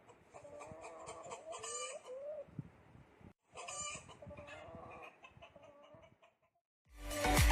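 Hens clucking in two bouts of wavering calls. Near the end, after a brief silence, loud electronic dance music starts.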